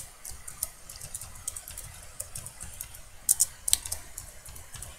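Typing on a computer keyboard: a run of irregular keystroke clicks, with a few louder strokes about three and a half seconds in.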